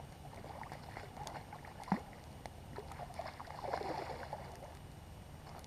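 Water splashing and sloshing at the river's edge as a carp is let go back into the water, in irregular bursts that are loudest late on. There is one sharp click about two seconds in.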